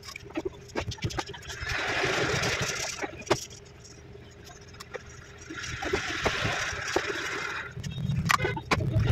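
Hands handling a phone frame and a replacement touch screen on a workbench: light taps and clicks, with two scratchy rustles of a second or two each, about two and six seconds in.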